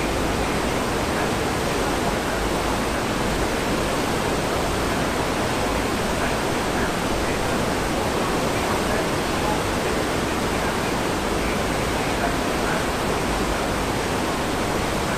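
Churning white water of a cruise ship's wake, stirred up by its azipod propellers: a steady, even rushing hiss.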